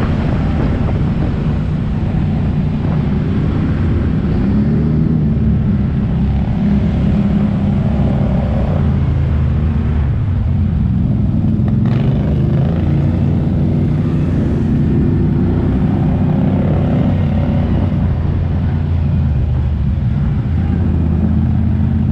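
ATV engine running steadily while riding, its pitch rising and falling a little as the throttle changes, with a single sharp knock about twelve seconds in.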